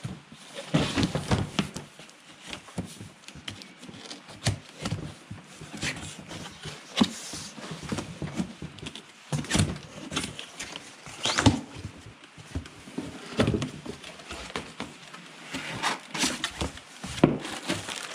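Cardboard chainsaw box being opened and unpacked by hand: irregular knocks, scrapes and rustles of cardboard and packaging as parts are lifted out.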